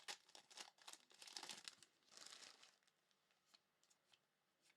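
Foil trading-card pack wrappers crinkling and tearing as packs are opened and handled, in several short rustling bursts over the first couple of seconds, then a few faint ticks.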